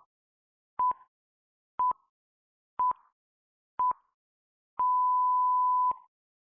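Electronic countdown pips: four short, identical high beeps about a second apart, then one long beep lasting about a second, in the manner of a time-signal countdown.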